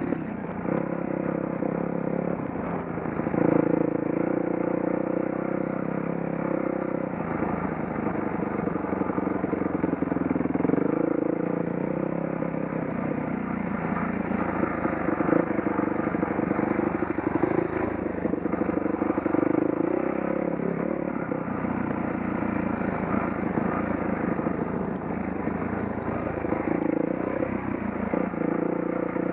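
Dirt bike engine running under load, its pitch rising and falling every few seconds as the throttle is opened and eased off.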